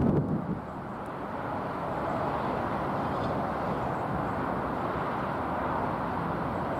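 Steady distant rumble of traffic and rail noise. About half a second of wind buffets the microphone at the start.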